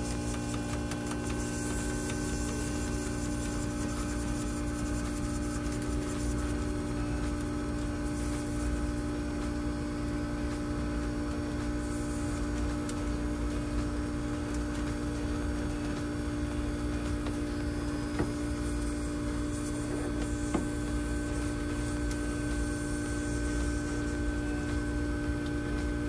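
HVAC unit running: a steady hum made of several steady tones, with a thin higher whine above it. A couple of faint clicks come past the middle.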